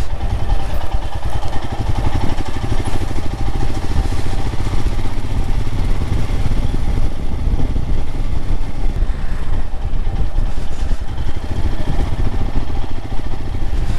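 Royal Enfield Himalayan single-cylinder motorcycle engine running steadily while riding, with wind rumble on the microphone.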